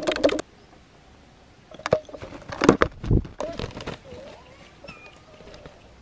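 A plastic-bottle trap snapping shut as its trigger stick is knocked away: a quick clatter of plastic and wood. About two seconds later comes a longer run of clattering and knocking, then a faint wavering chirp near the end.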